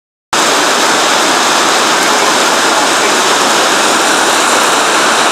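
Heavy downpour pelting a flooded concrete yard: a loud, steady, dense hiss of rain.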